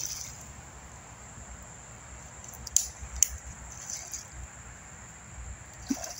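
Hooked fish thrashing and splashing at the surface of shallow water in a few short, sharp splashes: one at the start, two close together about three seconds in, smaller ones later, over a steady low rumble.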